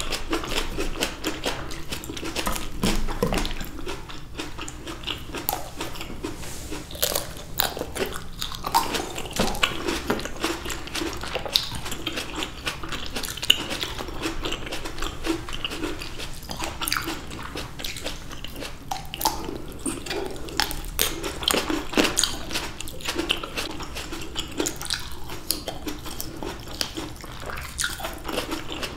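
Close-miked biting and chewing of red grapes by two people: a continuous run of small crunches and clicks.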